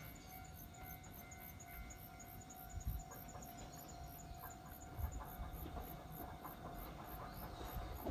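Insects chirping in a rapid regular pulse, about three or four a second, over a faint steady outdoor background, with a couple of low thumps. In the last few seconds the faint rumble and rail clicks of an approaching Iyo Railway 700 series electric train start to build.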